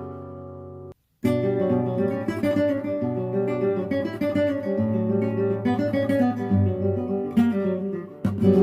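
Acoustic guitar: a strummed chord rings out and fades, cuts off abruptly about a second in, then the guitar plays busy strummed and plucked passages; it breaks off and restarts again near the end.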